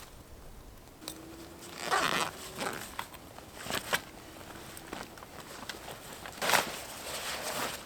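Dry twigs and forest-floor litter crackling and rustling in several short bursts, the loudest about six and a half seconds in, as small firewood for a hobo stove is gathered.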